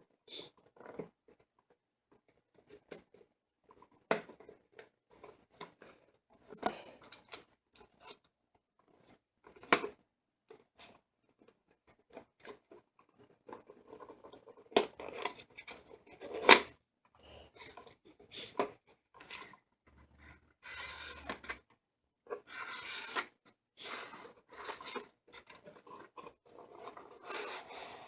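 An Intel Pentium G4400 CPU's retail box being opened and handled: scattered rubbing, scraping and clicks of the packaging, with longer scraping rustles past the middle.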